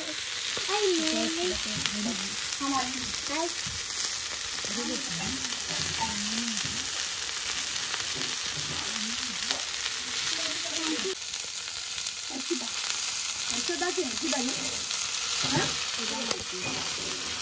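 Marinated chicken pieces sizzling in hot oil on a flat tawa griddle: a steady frying hiss.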